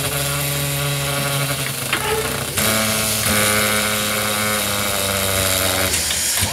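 Steam whistle of broad-gauge J class steam locomotive J515 sounding one long departure blast. It changes tone and gets louder about two and a half seconds in, then cuts off sharply near the end.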